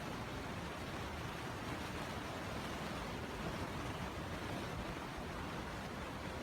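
Steady rushing wind noise on the microphone, with no distinct events.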